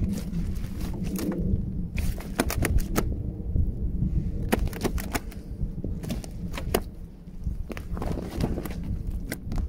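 A run of sharp, irregular clicks and taps over a low rumble, with a dense cluster about two seconds in and another around five to seven seconds.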